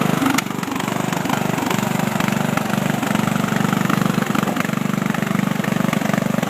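Riding lawn mower's engine running steadily, with one short click about half a second in.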